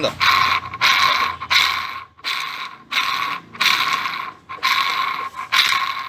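Worn INA ball bearing inside a 2010 Ford Fusion's electric power steering rack, worked back and forth by hand, giving a gritty grinding rattle in about eight strokes. Water got into the steering box, and this bearing is the cause of its rumbling noise.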